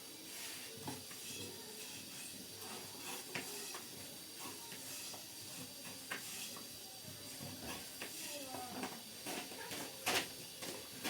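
Light knocks and clatter of cooking utensils over a steady hiss, with one sharper knock near the end.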